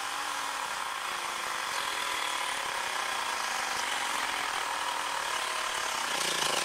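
Xiaomi Mi portable battery-powered air compressor running steadily while it inflates a bicycle tyre toward 4.5 bar. Near the end its sound changes and takes on a more distinct pitched hum.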